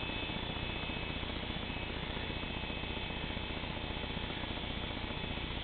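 Corded electric hair clippers running with a steady buzz as they cut a man's hair.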